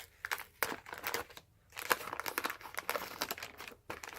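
Crinkling of a waxed-paper baseball card pack wrapper and cards being handled, an irregular rustling with small clicks and a short pause about a second and a half in.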